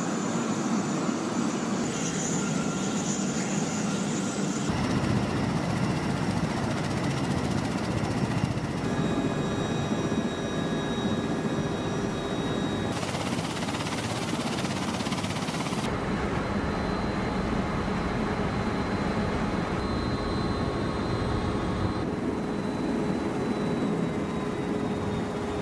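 MV-22 Osprey tiltrotor's turbine engines and proprotors running: a steady rush with faint whining tones. The sound changes abruptly several times, as from spliced shots.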